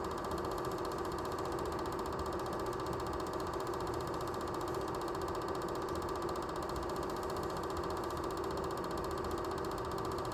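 Film projector running: a steady motor whir with a fast, even clatter of the film transport.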